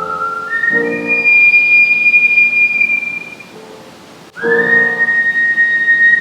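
Professional human whistling of a slow melody over a musical accompaniment. A few notes climb to a long, high held note; after a short dip, a second long note is scooped up into from below about four seconds in and held.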